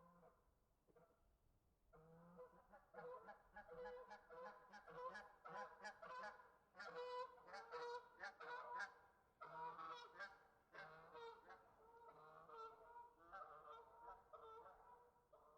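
A flock of geese honking, many calls overlapping: a few scattered honks at first, then a dense burst of calling through the middle that thins out toward the end.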